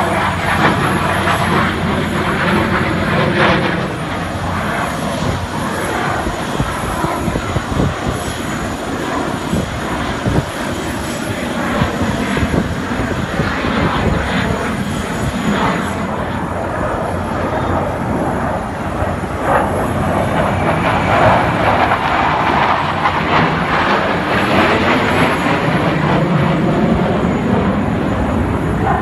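Fighter jet engine noise from a display flight: a loud, continuous jet rush with a slow sweeping, phasing quality as the aircraft moves across the sky.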